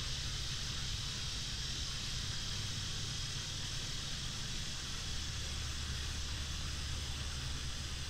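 Playback of an outdoor nature recording: a low rumble of distant motorway traffic under a steady high-pitched hiss. The rumble grows louder about five seconds in.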